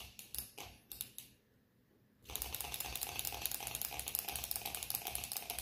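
Six-cylinder rotary Stirling engine with metal balls rattling inside its cylinders. It gives a few irregular clicks as it is turned by hand, falls quiet briefly, then from about two seconds in starts a fast, continuous clicking rattle as it runs.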